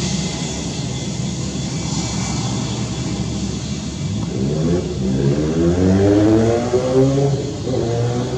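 Airbus A320-232's IAE V2500 jet engines running with a steady rushing noise as the airliner slows on the runway after landing. About four seconds in, music with a chanting, choir-like voice comes in and becomes the loudest sound.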